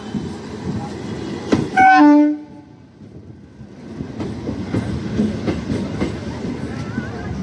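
An ICF three-phase EMU local train sounds one short, loud horn blast about two seconds in. Its wheels then click over the rail joints as the coaches roll slowly past, held to a 20 km/h speed restriction for track maintenance.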